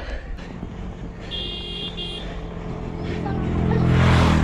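A motor vehicle approaches and passes close by, its engine growing louder toward the end, with a rush of noise as it goes past.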